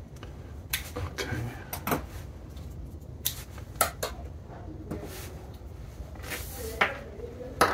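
Hard plastic multimeter test clips and test leads being handled and set down on a tabletop: a scattered string of light clicks and knocks, with a brief rustle about six seconds in.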